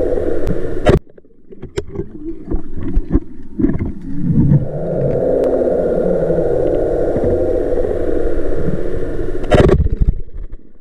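Low underwater rumble that cuts out about a second in, with a few sharp clicks, and returns at about four seconds. Near the end, a single loud sharp crack as a speargun is fired underwater.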